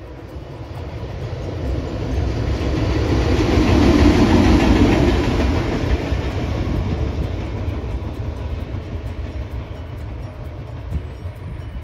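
A train passing by: the noise of its wheels on the rails swells to its loudest about four to five seconds in, then fades slowly as it moves away.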